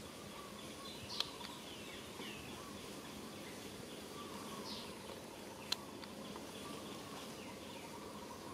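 Outdoor woodland ambience: a steady hiss with a few short, high, falling chirps now and then, and two sharp clicks, one about a second in and one past the middle.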